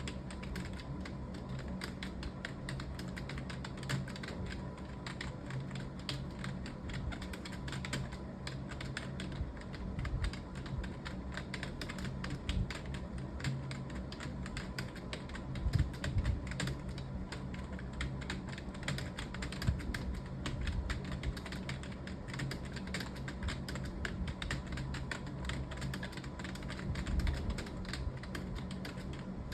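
Fast, continuous typing on a computer keyboard: a steady stream of key clicks with no long pauses, over a steady low hum.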